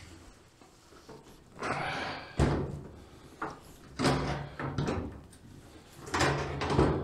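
Coated steel roofing sheet being bent and pried open at a folded seam with hand seaming pliers: three bursts of creaking, scraping metal, about two seconds apart, each with a sharp clank.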